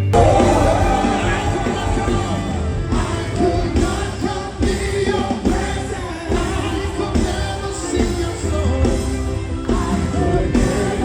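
Live worship music with a band and singing voices in a large hall, starting abruptly.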